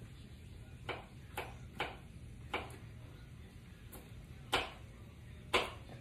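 Kitchen knife dicing garlic on a cutting board: sharp, irregularly spaced knocks, about seven in six seconds, the loudest two near the end.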